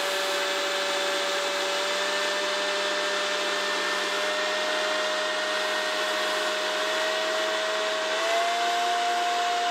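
Corded electric leaf blower running steadily, a rushing air noise with a motor whine. The whine's pitch steps up slightly about eight seconds in.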